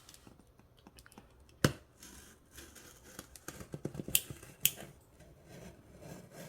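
Scissors cutting open a doll's shipping box, giving a few sharp snips about a second and a half in and again around four seconds, with a run of smaller clicks and scrapes between them.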